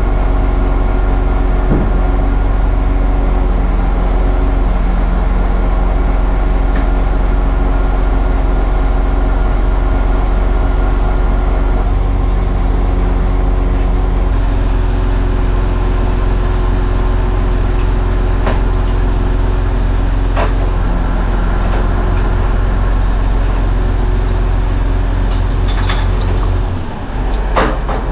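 Truck-mounted loader crane working, its hydraulics and the truck's diesel engine running steadily, with the tone stepping up and down several times as the crane moves. A few sharp metallic clicks near the end.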